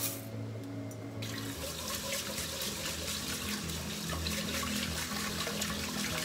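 Kitchen tap running into a metal rice-cooker pot while rice is swished and rinsed by hand; the water starts about a second in and runs steadily.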